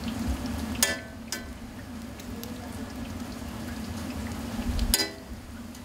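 Jalebi deep-frying in a wide pan of hot oil with a steady sizzle. A metal utensil clinks against the pan three times: about a second in, again just after, and louder about five seconds in.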